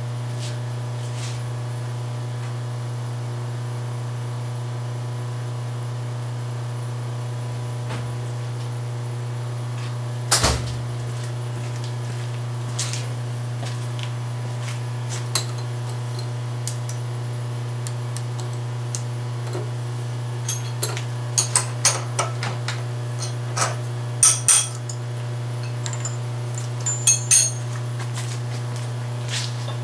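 Light metal clinks and taps as metal pieces are set into a milling-machine vise: one sharp clink about a third of the way in, then a quick run of clinks near the end, over a steady low machine hum.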